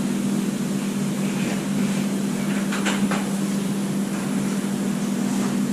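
Steady low machine hum over a constant hiss, with a few faint light clicks about three seconds in.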